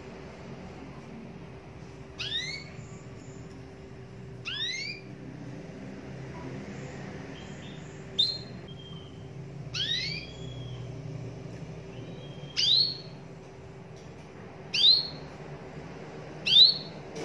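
Domestic canary giving short rising call notes one at a time, seven in all, about every two to three seconds, rather than a continuous song; the last few are the loudest.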